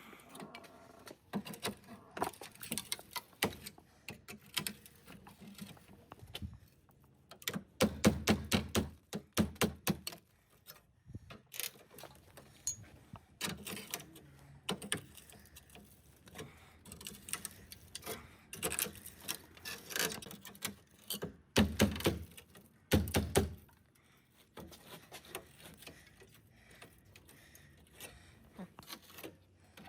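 Irregular clicks and knocks from hand-tool work, with two runs of quick, loud strikes, about eight seconds in and again about twenty-two seconds in.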